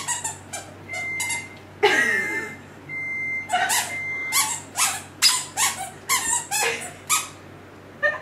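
A toddler's squeaker shoes squeaking step after step, short high squeaks coming irregularly about twice a second.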